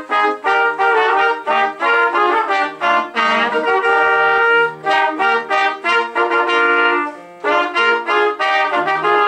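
Trumpet trio playing in close harmony: quick tongued notes, then a few longer held chords. About seven seconds in the playing breaks off for a moment and resumes.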